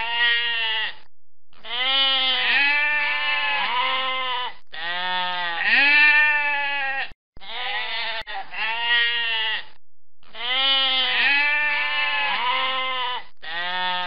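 Sheep bleating repeatedly: a run of long, wavering bleats, one after another with brief gaps between them.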